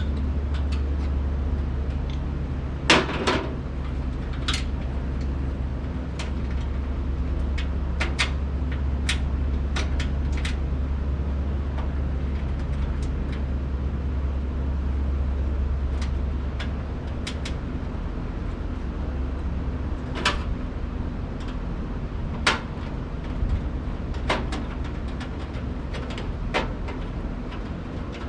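Scattered clicks and knocks of screws and steel legs being handled and fitted to a charcoal pizza oven, the loudest a cluster of knocks about three seconds in, over a steady low hum that weakens about two-thirds of the way through.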